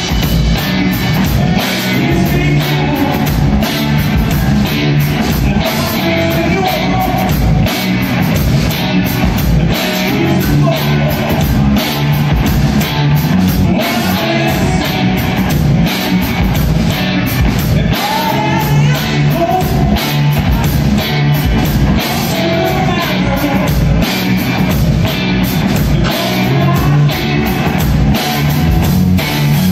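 Live rock band playing loud through stage amplifiers: electric guitars over a drum kit, with steady regular drum hits.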